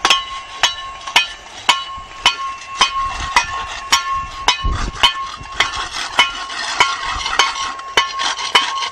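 Small metal blades chipping at an asphalt road surface by hand: a steady run of sharp strikes, about two to three a second, each with a short metallic ring.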